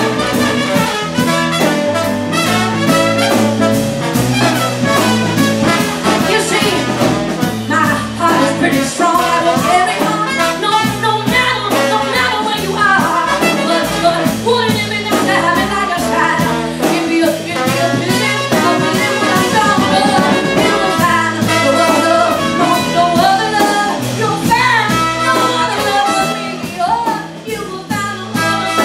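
Live small jazz band playing an instrumental passage: trumpet and trombone playing over a plucked upright bass line and drums.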